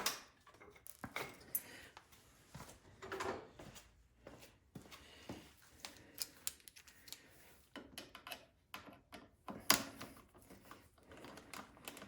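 Faint, scattered metallic clicks and clinks of a 10 mm wrench working loose the two nuts that hold a Craftsman snowblower's carburetor on. One sharper knock comes about three-quarters of the way through.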